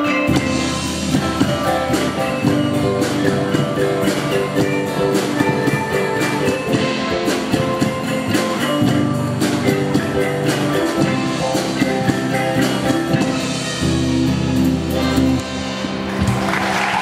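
Malay gamelan ensemble playing with an electric guitar and large barrel drums: many rapid struck metallophone notes over a steady drum beat. The piece ends about a second before the end and applause breaks out.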